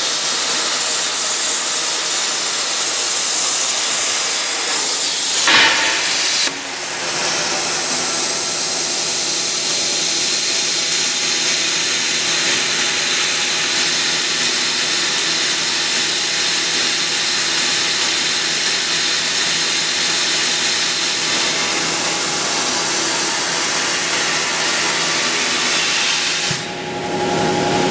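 CNC plasma torch cutting square steel tube: a loud, steady hiss of the arc and its air jet, with a short crackling burst about five and a half seconds in. The hiss carries on after a brief drop about a second later, now with a faint steady machine hum under it.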